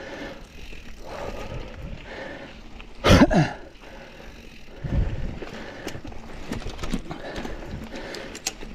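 Mountain bike riding over a dirt singletrack trail: a steady rumble of tyre and ground noise with rattling from the bike, a brief loud burst about three seconds in and a low thump about two seconds later.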